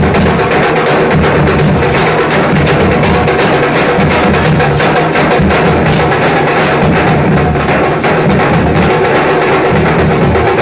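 Large dhol drums beaten by hand and stick in a fast, steady rhythm, loud and continuous.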